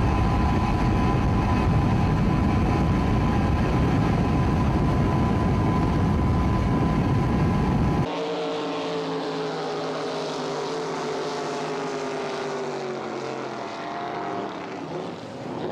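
Racing boat engines running at speed. First a loud, steady low rumble; then, after a sudden change about eight seconds in, a drag boat engine's note that falls slowly in pitch as the boats race side by side.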